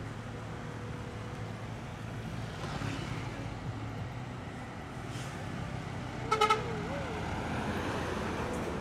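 A Hino intercity bus's diesel engine runs steadily as the bus approaches and passes, with traffic around it. About six and a half seconds in, a horn sounds three short, loud blasts, the loudest thing heard.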